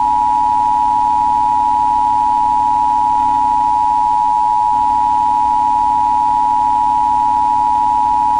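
Emergency Alert System attention signal: two steady sine tones at 853 and 960 Hz sounding together, loud and unbroken, with a fainter low steady hum beneath.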